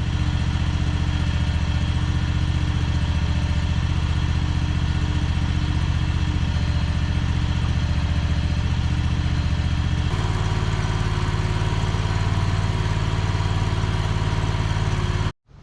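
Engine of a cheap Chinese mini skid steer running steadily and loudly. About ten seconds in its tone changes abruptly, and it cuts off suddenly just before the end.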